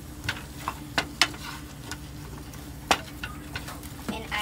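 Onions and bell peppers sizzling in a skillet as they are stirred, with the utensil knocking and scraping against the pan several times; the sharpest knocks come about a second in and near three seconds.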